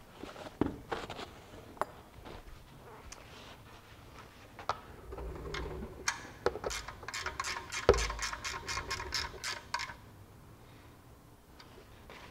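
Socket ratchet clicking in quick runs, about four or five clicks a second, as the 14 mm oil pan drain plug is turned back in, with a single low knock about eight seconds in.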